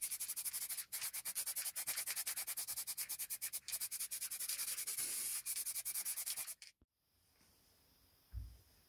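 Hand sanding: quick, even back-and-forth rasping strokes of abrasive on a surface, which stop abruptly about seven seconds in. A soft low thump follows near the end.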